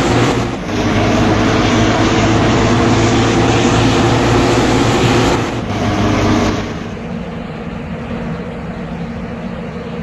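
A large vehicle's diesel engine, most likely a bus, running loudly close by. It falls away sharply about six and a half seconds in, leaving a quieter steady traffic noise.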